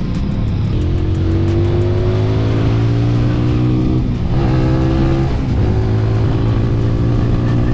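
TVS Apache RTR 200 4V's single-cylinder engine accelerating on the road: its pitch climbs steadily, drops with an upshift about four seconds in, climbs again and drops with another shift a second or so later, then holds steady.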